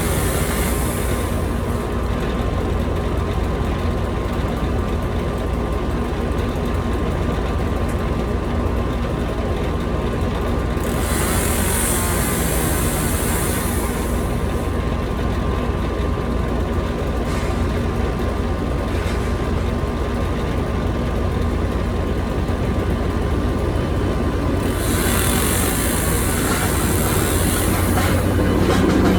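Skid steer engine running steadily with a low rumble and a steady hum. A high hiss comes in three times: at the very start, about eleven seconds in for a few seconds, and again about twenty-five seconds in.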